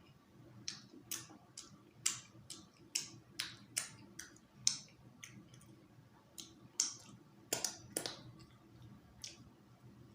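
Close-up eating sounds: irregular wet smacks and clicks of chewing and lip-smacking, about fifteen of them, with a short lull a little past the middle.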